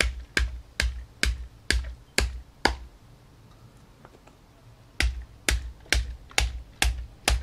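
A husked coconut used as a mallet, knocking short PVC pipe pieces into a T fitting on concrete: hard knocks with a dull thud, about two a second. A run of seven, a pause of about two seconds, then six more.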